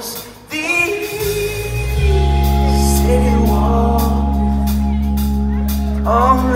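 A live rock band playing a song with a male lead vocal. The sound dips briefly, then a loud chord comes in and is held low and steady, and the singing returns near the end.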